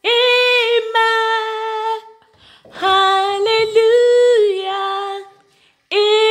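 A woman singing unaccompanied, a slow worship chant of "Amen" and "Hallelujah" in long held notes: three phrases with short breaks between them.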